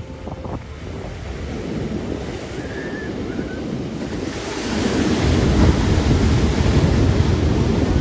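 Ocean surf washing in over shoreline rocks, rising to a loud rush of breaking water about halfway through.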